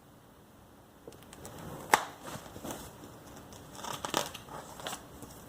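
Glossy magazine pages being handled and turned, paper crinkling and rustling in short bursts, with a sharp snap of paper about two seconds in.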